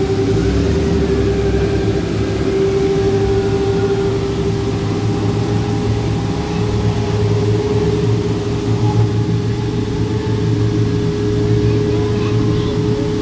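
Chinook hay dryer's blower running: a loud, steady hum with a low rumble beneath, its pitch edging slightly upward.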